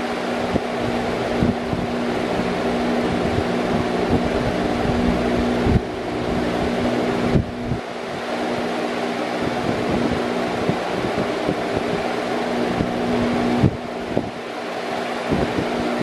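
Large metal-grilled electric fan running steadily: an even rush of air with a steady hum under it. A few brief low thumps and short dips in level come scattered through.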